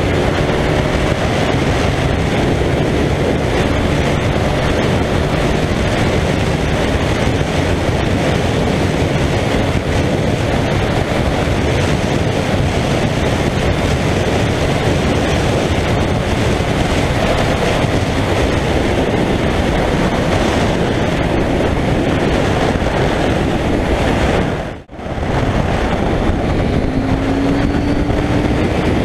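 A KTM 790 Duke's parallel-twin engine running at high motorway speed under a loud, steady rush of wind on the microphone. The sound drops out for a moment about 25 seconds in. Near the end the engine note rises as the bike accelerates.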